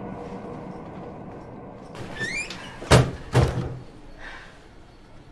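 A door: a short squeak, then two loud bangs about half a second apart as it swings and shuts, over a low room murmur that fades after the first couple of seconds.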